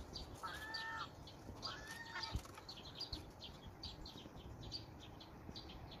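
Gulls calling while feeding: two drawn-out, even-pitched calls in the first couple of seconds. Short high chirps from birds repeat a few times a second throughout.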